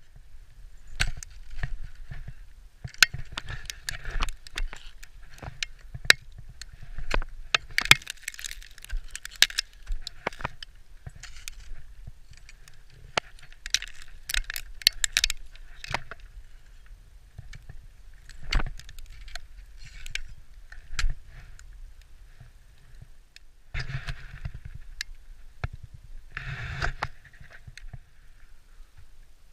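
Metal climbing hardware clinking and jangling, carabiners and quickdraws on a harness, amid sharp knocks and short crunching scrapes as ice axes and boots bite into hard snow and ice. The crunching bursts come several times, loudest in the middle and again near the end.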